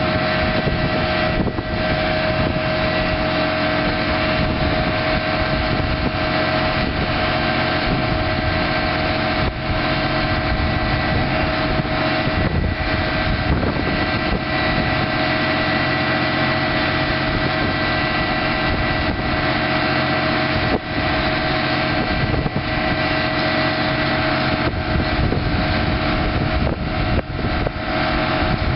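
1990 Ford F800 truck's 6.6-litre inline-six turbo diesel running steadily, with a constant whine over the engine note.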